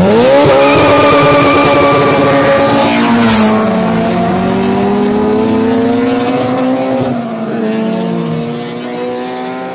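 Honda Civic hatchback's four-cylinder engine accelerating hard from a launch at high revs. It shifts gear about three seconds in, climbs through the next gear, then its pitch falls and it fades as the car pulls away.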